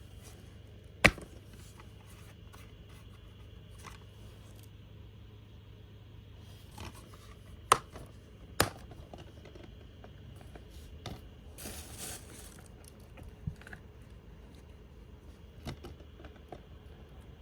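DVD cases and packaging being handled: three sharp plastic clicks, with several softer knocks and a short scraping rustle about twelve seconds in.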